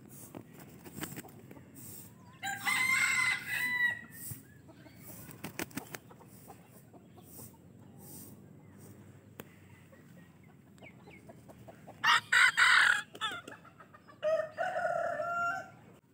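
Serama bantam roosters crowing: one crow about three seconds in, then two more close together near the end, the first of those the loudest.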